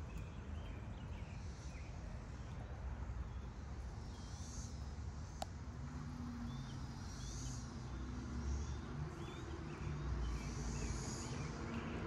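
Outdoor background with a distant engine hum that builds in the second half, scattered bird chirps, and a single sharp click about five and a half seconds in.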